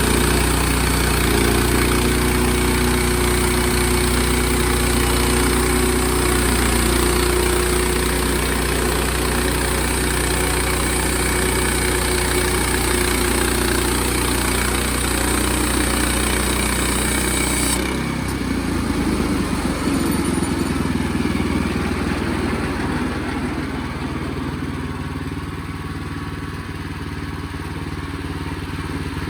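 Sawmill engine running steadily under load with a high hiss over it; about two-thirds of the way through the hiss cuts off suddenly and the engine runs on with a rougher, lower note.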